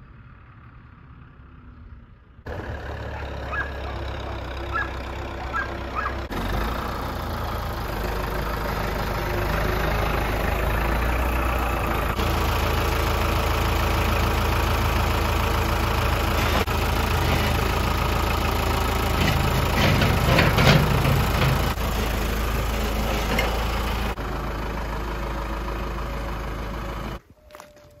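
A John Deere tractor engine running steadily as the front-end loader works, with a brief clattering about two-thirds of the way through.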